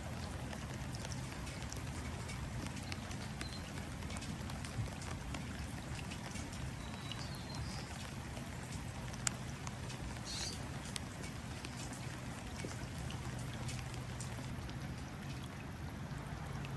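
Steady light rain falling onto water, many small drops tapping and pattering, with a few brief faint bird chirps. One sharper single drop tap stands out about nine seconds in.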